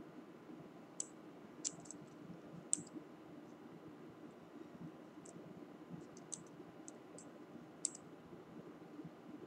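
Light, sharp clicks from a metal tube e-cigarette mod being handled and turned over in the hands, about a dozen at irregular intervals, over a faint steady low hum.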